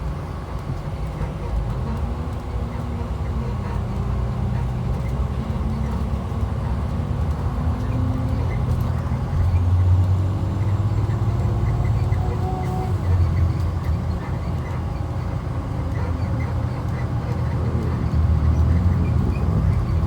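Cabin noise inside a moving 2012 IC RE school bus: its MaxxForce DT diesel engine drones under road noise, its pitch rising and falling as the bus speeds up and slows, with louder surges about halfway through and near the end.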